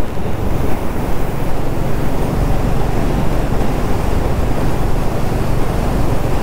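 Steady wind rush on the microphone of a motorcycle riding at highway speed, with the low drone of a Honda CB350RS single-cylinder engine underneath.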